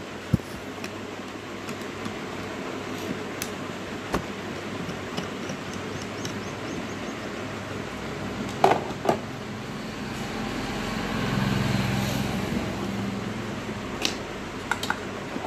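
Light clicks and taps of a small plastic soundbar housing and its screws being handled and worked loose, the loudest pair about nine seconds in, over a steady background hum. A low rumble swells and fades about ten to thirteen seconds in.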